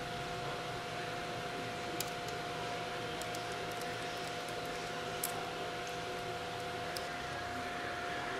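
Steady background hum with two faint steady tones, and three light clicks spread through, as bolts are threaded into the pump's outlet valve plate.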